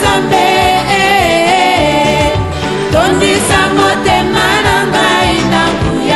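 Congolese gospel song: voices singing a melody over a band with a steady beat.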